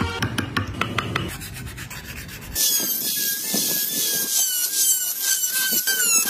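Wood being scraped and carved with a hand tool, then, about two and a half seconds in, a small handheld rotary tool with a cutting bit grinding grooves into a wooden wheel. Its high whine dips in pitch and recovers about three times a second.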